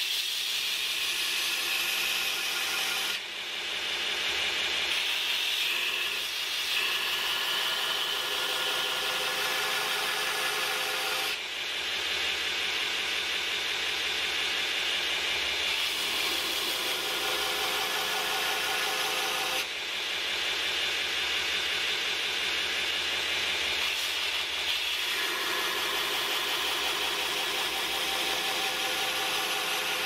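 Belt grinder with a 60-grit belt grinding the bevel of a CPM 154 stainless steel knife blank held in a bevel jig: a steady grinding hiss of steel on the abrasive belt. It runs in long passes, dipping briefly between them about every eight seconds.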